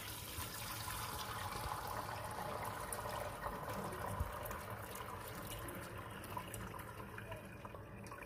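Pot of cooked meat and broth being strained through a couscoussier's perforated steamer basket: liquid running and trickling through the holes, easing off slightly toward the end.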